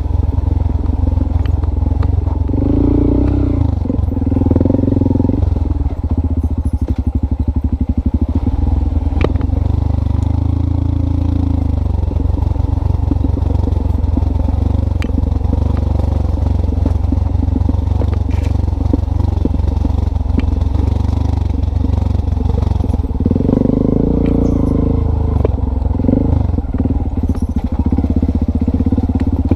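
An engine running steadily under a heavy low rumble, its note rising and falling a few times, as when a vehicle speeds up and slows down.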